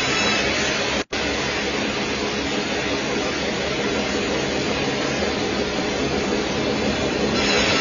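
Band sawmill blade cutting lengthwise through a log, a steady noisy machine sound that briefly cuts out about a second in.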